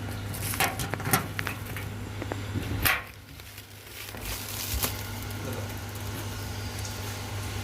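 Packaging being handled during an unboxing: a few sharp crackles and knocks over a steady low hum.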